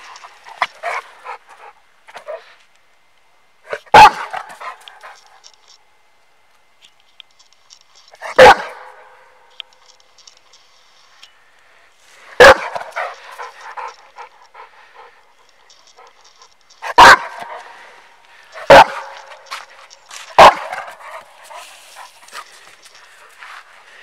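American bulldog barking: six loud single barks, a few seconds apart, the last three closer together, with quieter scuffling noise in between.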